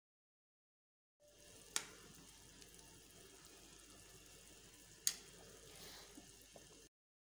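Faint simmering and bubbling of chicken vegetable soup in a pot, with two sharp clicks, a couple of seconds apart, and a few small ticks near the end.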